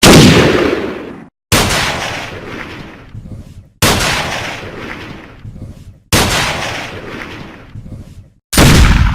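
Gunshot sound effects: five separate shots in a row, each a sudden loud crack that dies away over a second or two in an echoing tail. Short silent gaps lie between them.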